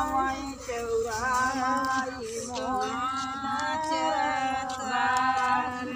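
Voices singing a slow song, holding long notes that bend gently up and down.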